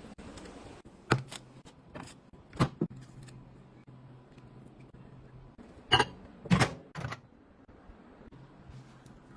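Scattered sharp taps and knocks of utensils and containers being handled in a kitchen: about eight separate hits, some in quick pairs, the loudest around six to seven seconds in, over a faint low hum.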